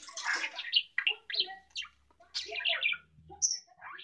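Budgerigar chattering: a quick run of short, scratchy chirps and warbles, with a brief high squeak about three and a half seconds in.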